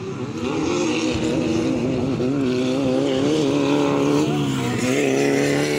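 Engines of 1600cc off-road race buggies running under racing load, their pitch wavering up and down as the throttle changes.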